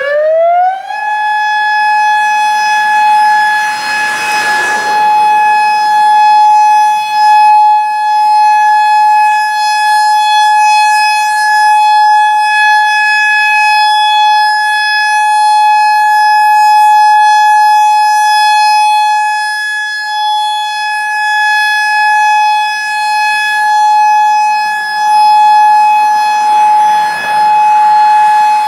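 Federal Signal EOWS 612 electronic outdoor warning siren sounding the Alert signal: a quick rising wind-up in the first second, then one loud steady tone held throughout. About eight seconds in, a second, fainter siren winds up more slowly and holds a lower steady tone beneath it.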